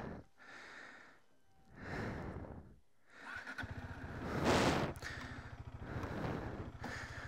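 A motorcycle engine comes in about halfway through and keeps running with a steady low pulse. A loud rush of noise swells and fades about a second after it starts. Before that there is only faint noise, broken twice by short dead gaps.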